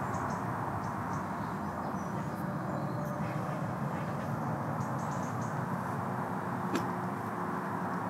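Steady low rumbling outdoor ambience with faint bird calls, and a single sharp click about seven seconds in.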